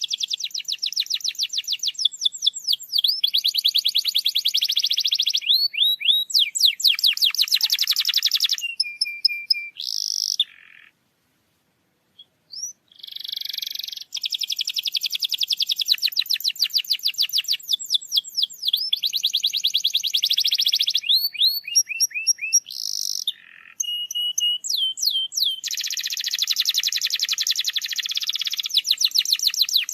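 Domestic canary singing a long song of rapid trills and rolls mixed with quick sweeping notes. The song breaks off for about a second and a half a little before the middle, then carries on.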